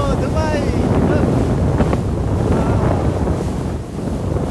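Wind buffeting the microphone aboard a speed boat under way, over a steady low rush of water and boat noise.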